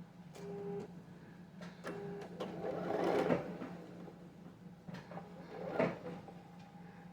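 Sewing machine stitching in short runs while quilt pieces are sewn, over a steady low hum, with the loudest run about three seconds in and a shorter one near six seconds.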